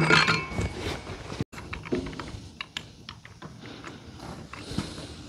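Small metal clicks and clinks from steel parts of an International 966 hydraulic PTO clutch pack being handled and fitted into the housing, with a louder clatter with a brief ring right at the start, then scattered light ticks.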